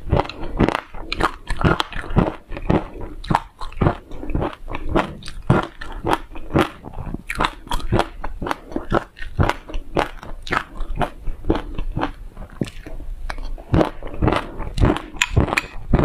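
Chewing and crunching of a mouthful of sesame seeds and passion fruit pulp, many sharp crunches in quick, irregular succession.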